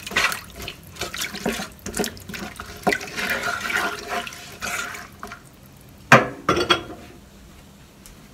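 Wooden spoon stirring water with sliced onions and lemongrass in a large roasting pan: repeated sloshing and scraping strokes. About six seconds in come a couple of sharp knocks, the loudest sounds, then it goes quiet.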